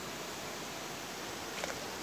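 Steady outdoor background hiss by the lake, with one brief sharp sound about one and a half seconds in.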